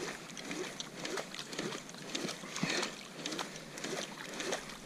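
Water lapping against a plastic kayak hull, with light clicks and knocks repeating every half second or so.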